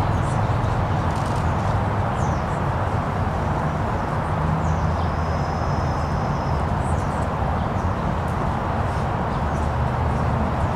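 Steady outdoor background noise with a constant low hum, a few faint high bird chirps and one thin held high tone a little before the middle.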